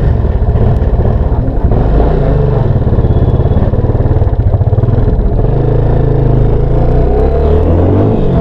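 Motorcycle engine running on the move, its pitch rising and falling with the throttle and climbing again near the end.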